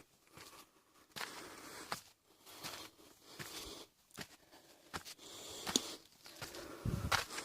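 Footsteps of a person walking: an irregular series of scuffs and crunches with a few sharp clicks.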